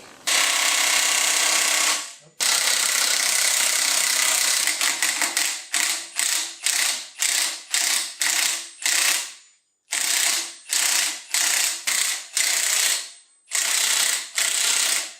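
Impact wrench hammering on a seized crankshaft pulley bolt: two long runs, then a string of short trigger bursts about twice a second, then another long run near the end. The bolt is tightened to about 300 lb-ft and hard to break loose.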